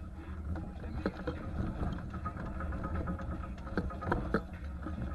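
1989 Ford Bronco running as it drives a rough dirt track, a steady low engine drone heard from inside the cab. Scattered sharp knocks and rattles cut through it, one about a second in and a cluster near four seconds.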